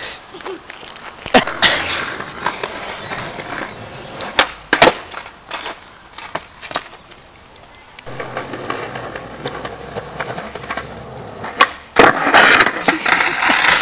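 Skateboard wheels rolling on asphalt, broken by sharp wooden clacks of the deck hitting the ground, twice early on and once, loudly, near the end.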